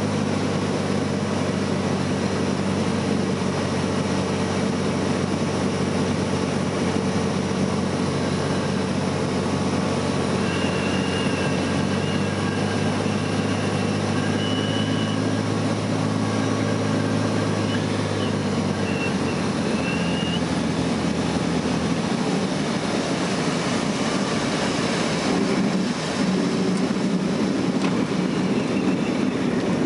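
Single-engine propeller light aircraft's piston engine running steadily, heard from inside the cabin on final approach. About two-thirds through the engine note changes as the plane touches down, and a rougher rumble of the wheels rolling on the unpaved grass-and-dirt strip takes over.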